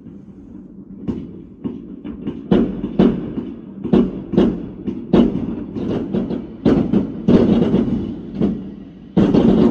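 Fireworks launched from the ground going off: a quick, irregular run of sharp bangs and crackles that thickens about two and a half seconds in and stays dense, with the loudest burst near the end.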